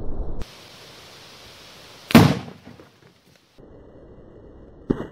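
An empty plastic beer keg, still under gas pressure, bursting after an air-rifle pellet hits it: one sharp loud bang about two seconds in that dies away within half a second, and a smaller pop near the end.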